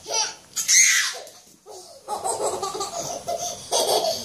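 A toddler laughing and squealing: loud high-pitched bursts in the first second, then a longer run of choppy laughter from about two seconds in.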